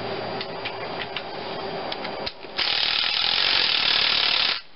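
Cordless drill driving a bolt on an engine block, running for about two seconds and then stopping abruptly. Before it there are a few light clicks of parts and tools being handled.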